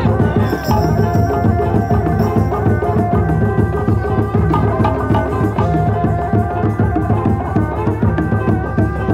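Sundanese reak ensemble music: dense, steady drumming with a held melodic line above it.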